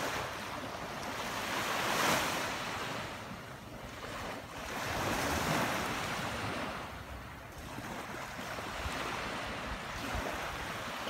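Surf washing on the beach, swelling and fading every few seconds, with wind on the microphone.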